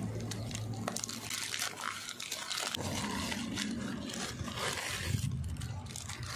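Plastic courier pouch crinkling and rustling as it is cut open with scissors and a plastic brush-set packet is pulled out, over a low hum.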